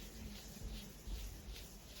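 Soft rubbing strokes of hands moving over a person's body, a few tenths of a second apart, with a dull low thump about a second in.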